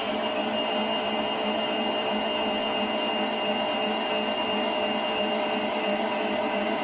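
Electric stand mixer running steadily, its beater churning a thin mantecada batter in a stainless steel bowl.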